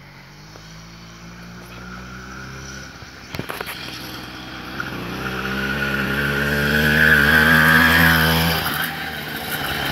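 Small petrol engine of a motorized bicycle approaching and passing close by, steadily getting louder to a peak about seven to eight seconds in, then falling away.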